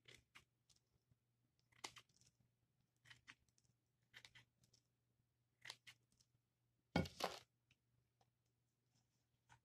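Scissors snipping dry moss, trimming a topiary ball: a series of short cuts about every second or so, the loudest a heavier double one about seven seconds in.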